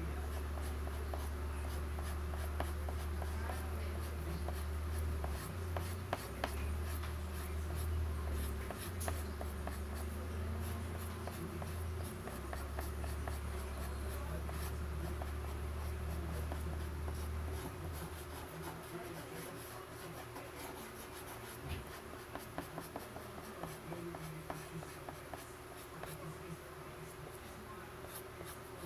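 Soft pastel stick scratching on paper in many short, quick strokes. A low steady hum runs underneath and stops about two-thirds of the way through.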